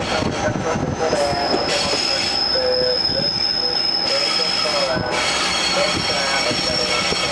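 Rail-car wheels squealing on the rails over the running noise of a TH3501 diesel railcar, heard from inside the car. A high, steady squeal holds through the middle and shifts slightly higher about five seconds in, over lower wavering squeaks.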